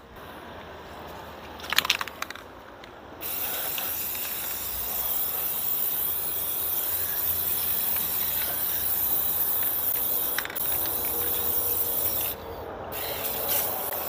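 Aerosol spray paint can spraying in one long steady hiss of about nine seconds, starting about three seconds in, then a short second spray near the end. A brief rattle comes about two seconds in, before the spraying.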